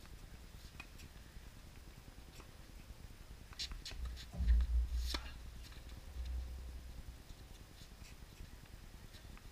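Tennis ball struck by racquets during a doubles rally: a series of sharp pops, the two loudest near the middle and fainter ones spread around them. A low rumble swells briefly around the loudest pops.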